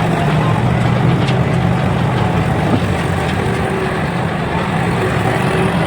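Large engine running steadily with an even low hum.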